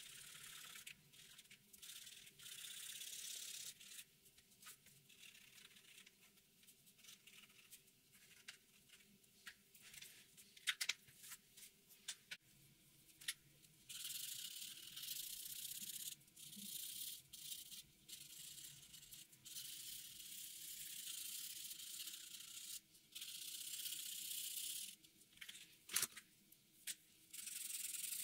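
Felt-tip marker nibs rubbing across paper in strokes, a faint scratchy hiss that comes and goes in stretches, with a few sharp clicks between them.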